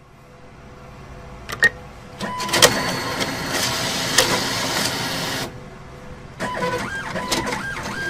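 An ATM's cash dispenser counting out banknotes: a mechanical whirring and rattling with fast clicks and a steady whine. It starts with a couple of sharp clicks, runs hard for about three seconds, stops, and starts again about six and a half seconds in.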